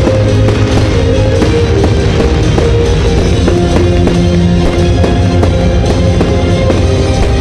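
Loud music with drums playing as a fireworks show soundtrack, with firework shells bursting and crackling mixed in.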